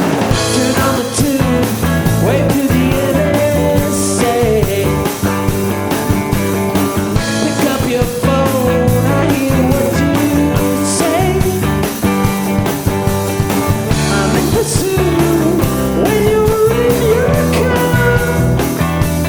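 Rock band playing live: drums, bass and guitar, with a lead line that bends up and down in pitch and a few cymbal crashes.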